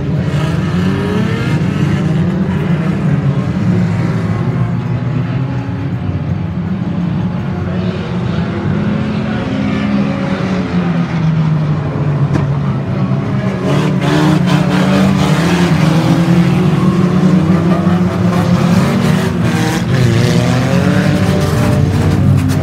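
A field of banger racing cars' engines running hard around the oval, several engine notes rising and falling over one another as cars accelerate and lift off. The sound gets louder about two-thirds of the way through, with scattered sharp knocks.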